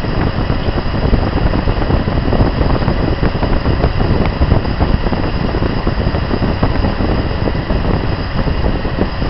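AMC 360 V8 idling steadily, heard close up under the hood while its carburettor idle mixture screws are being set by vacuum gauge.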